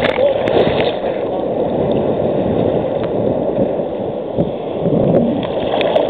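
Seawater sloshing and gurgling around a waterproof camera held at the waterline in small surf waves, making a dense, steady churning. A few splashes come in the first second.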